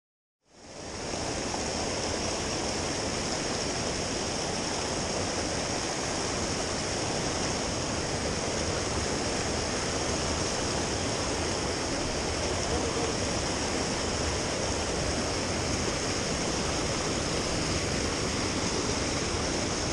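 Mountain creek rushing over rocks: a steady rush of water that starts abruptly about half a second in and holds level.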